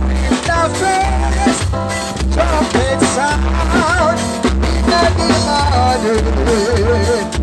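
Live band music played loud through big speaker boxes: a keyboard melody over drums and a heavy, regular bass beat.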